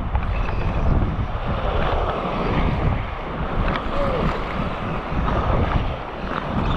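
Wind buffeting the microphone over small waves slapping and lapping close by in shallow surf, a steady noisy rumble with a few faint ticks.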